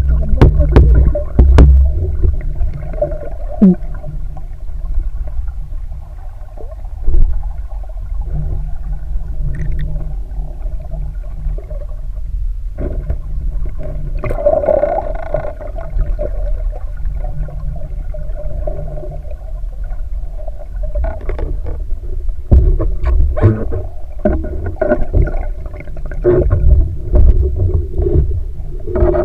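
Muffled underwater noise picked up by a camera submerged in a river: a steady low rumble of moving water with scattered knocks and clicks, more of them near the start and in the last several seconds.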